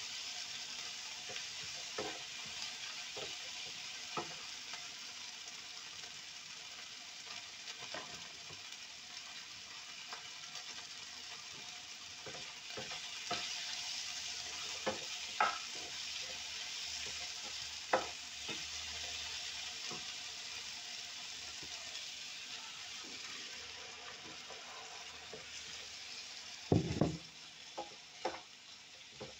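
Food sizzling steadily in a frying pan while a wooden spatula stirs it, with scattered taps and scrapes of the spatula on the pan. A quick cluster of louder knocks comes near the end.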